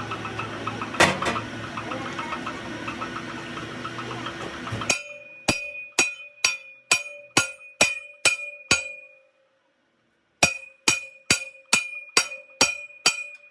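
Hammer striking a metal part in a steady series of ringing blows, about two a second: nine blows, a short pause, then eight more, each ringing at the same pitch. Before them, workshop noise with one sharp knock about a second in.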